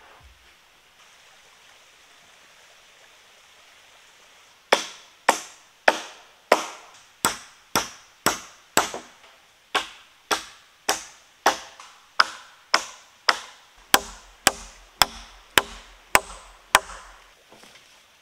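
Hammer driving nails into the boards of a timber frame: a steady series of about twenty sharp blows, roughly two a second, with a short pause about halfway through.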